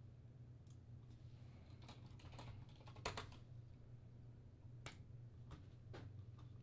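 Faint keystrokes on a computer keyboard: scattered taps, with a short run of typing about two seconds in, over a low steady hum.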